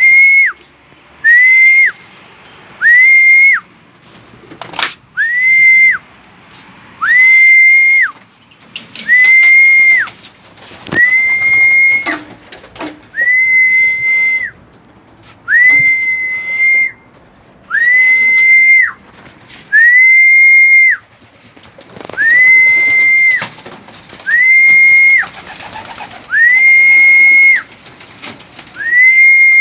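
A whistle sounded over and over in loud, steady, high single notes: about sixteen blasts, each up to about a second long, roughly every two seconds, each dropping in pitch as it cuts off. This is a pigeon keeper's feeding call to racing pigeons.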